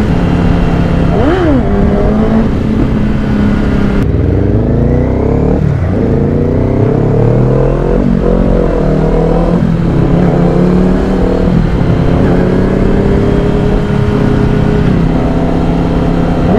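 Kawasaki Ninja 400 and Ninja ZX-10R motorcycles ridden together: engine notes rising and falling through acceleration and gear changes, over wind rush on a helmet-mounted microphone. The sound changes abruptly about four seconds in.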